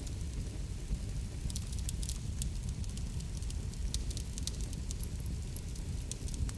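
Wood fire crackling, with frequent irregular sharp pops and snaps over a low steady rumble of flame.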